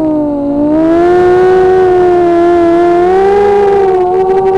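Brushless motors and 6x3 propellers of a BlackWidow 260 racing quadcopter whining, close to the onboard camera. The pitch dips about half a second in, climbs again and holds steady, then wavers near the end as the throttle changes.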